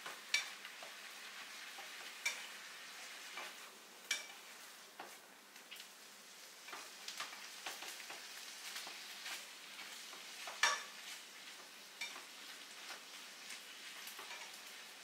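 Food sizzling in a frying pan on the stove while a utensil stirs it, with irregular scrapes and clacks of the utensil against the pan; the loudest clack comes about two-thirds of the way through.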